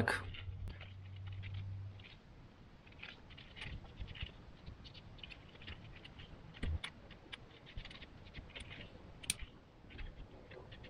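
Faint crinkling and scattered small clicks of a used oil filter's pleated paper element being flexed and pulled apart by hand. A low hum stops about two seconds in.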